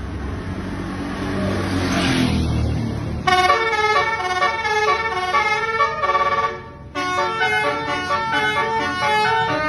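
A bus engine runs and revs up for about three seconds. Then a basuri multi-tone "telolet" bus horn starts, playing a tune of quickly changing notes. It breaks off for a moment around the middle and then carries on.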